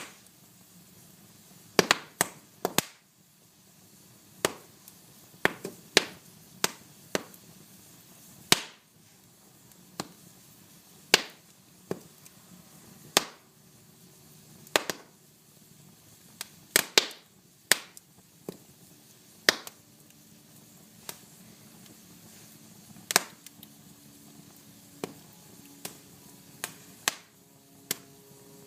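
Fire crackling: irregular sharp pops, some loud, about one a second, over a soft steady hiss. A faint steady low whistle joins in near the end.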